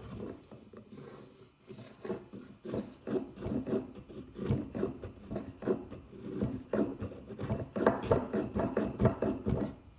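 Japanese hand plane cutting a chamfer along the edge of a wooden mallet head: repeated short scraping strokes of the blade on wood, a few a second, quieter for the first couple of seconds and then louder.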